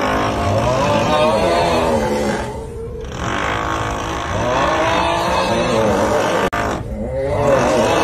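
Snoring-meme sound effect: a drawn-out, wavering 'uuuugghhh' groan, repeating every three to four seconds with short breaks. Steady power-drill noise runs underneath.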